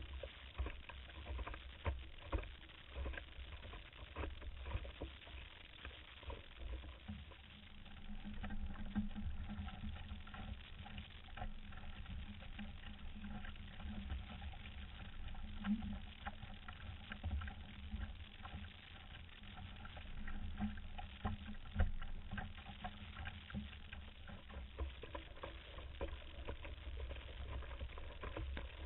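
Water rushing and splashing along the hull of a Solway Dory sailing canoe moving fast under sail, with gusty wind rumbling on the hull-mounted camera's microphone and frequent sharp knocks. A steady low hum runs from about 7 to 25 seconds in.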